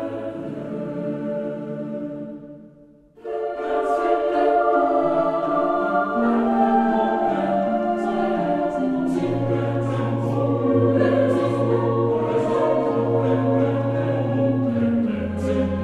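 Background music of sustained held chords. It fades out about three seconds in, a new louder section starts at once, and a low bass note comes in about nine seconds in.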